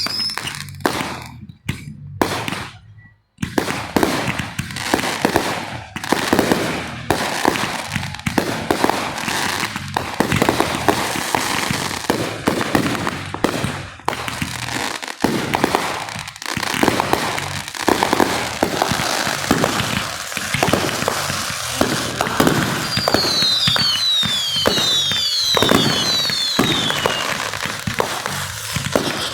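Aerial fireworks going off in a dense, almost continuous barrage of bangs and crackling, with a brief lull about three seconds in. Several falling whistles sound near the end.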